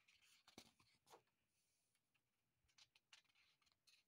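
Very faint paper rustling and light taps as sketchbook pages are turned by hand.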